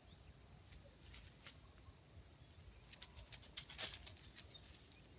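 Faint crackling of dry leaf litter as a wild junglefowl rooster scratches and pecks on the ground. There are a few light ticks about a second in, then a quick cluster of crackles around three to four seconds in.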